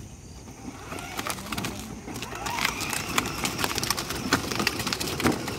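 Hard plastic wheels of a child's battery-powered ride-on toy jeep crunching and crackling over gravel as it drives, a rapid irregular clatter that grows louder about two seconds in.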